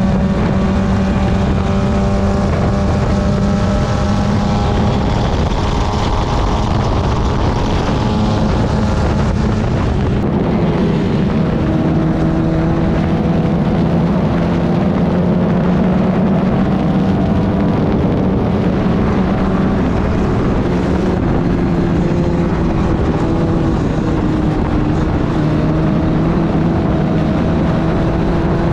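Club Ford race car's 1600 cc Ford Kent four-cylinder engine running hard at racing revs, with wind rush. The engine note drops in pitch about ten seconds in, then climbs slowly again as the car accelerates.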